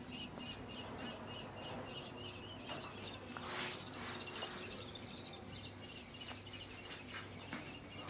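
Young common kestrels calling: faint, rapid chirps repeated about four times a second.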